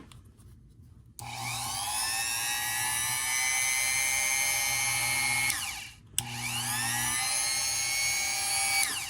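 Certified corded rotary tool switched on and spinning up to a steady high whine, then winding down about four seconds later. It is switched on again a moment after and runs for nearly three seconds before stopping.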